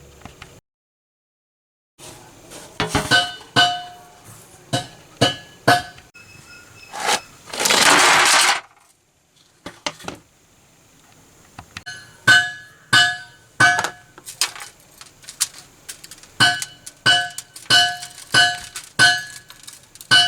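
Repeated hammer strikes on metal, each blow ringing at the same few pitches. From about halfway through they come steadily, roughly one every half second. Around a third of the way in there is a harsh rasping burst lasting about a second.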